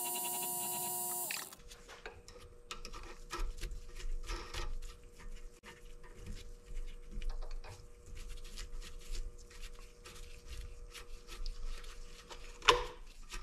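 Vevor 7x14 mini lathe running with a hand file held against the spinning freshly cut threads to take off the sharp crests, cutting off about a second and a half in. Then light clicks and taps as the threaded part is handled in the chuck, with a sharper click near the end.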